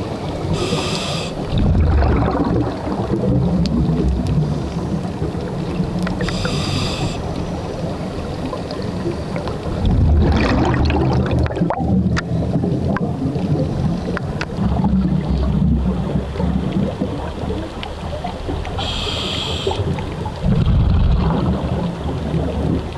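Scuba diver's regulator breathing heard underwater: a short hiss of each inhale followed by the low rumble of exhaled bubbles, three breaths.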